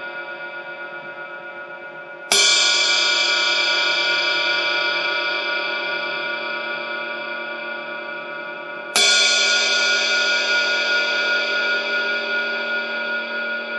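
Paiste Sound Formula Reflector 20-inch Power Ride cymbal struck twice with a stick, about two seconds in and again about seven seconds later, each stroke ringing out long with a bright, clear ping over a slowly fading wash. It opens on the ring of an earlier stroke dying away.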